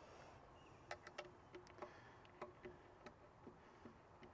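Faint, irregular small clicks and light ticks of hands working the upper radiator hose and its hose clamp, over near silence.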